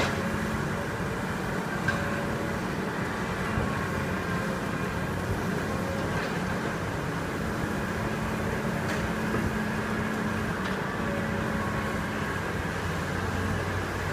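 Diesel engine of heavy construction machinery, an excavator or a concrete mixer truck, running steadily with a low, even hum and a few faint knocks.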